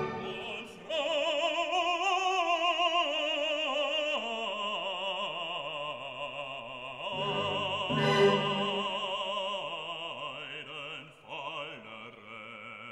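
Opera music: a classical singer holding long notes with wide vibrato, over classical accompaniment.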